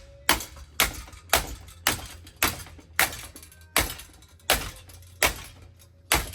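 A ceiling fan being smashed with a run of about ten hard, sharp blows, unevenly spaced about half a second apart, each leaving a brief metallic ring.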